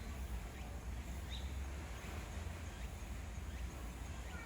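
Outdoor ambience: a steady low rumble with a few faint, short bird chirps and whistles, one about a second and a half in and descending whistled notes near the end.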